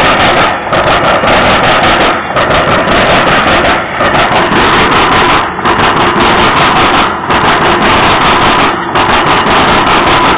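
Freight train's covered hopper cars rolling past close by: a loud, steady rumble of steel wheels on rail, dipping briefly about every second and a half.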